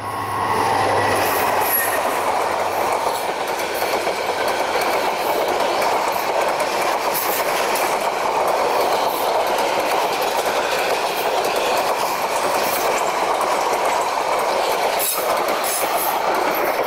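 Metre-gauge passenger train of PT INKA coaches hauled by an EMD diesel locomotive rolling past at speed: a loud, steady rumble of wheels on rails with rapid clicks over the rail joints, the locomotive's low engine hum dying away in the first couple of seconds.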